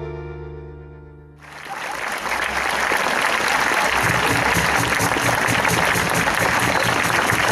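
A live band's final held chord fades out, and about a second and a half in, audience applause starts and goes on steadily.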